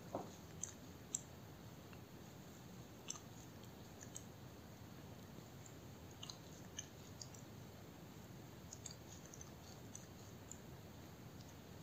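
Kitten licking its paw: faint, irregular wet tongue clicks and smacks, a few louder ones in about the first second, over a low steady hiss.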